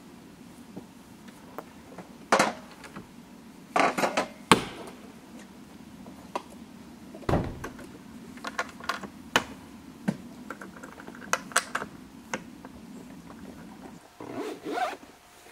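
Irregular clicks, knocks and thuds of a hard-shell rooftop tent being closed and its latches fastened, over a steady low hum. The hum stops near the end, followed by a short rustle.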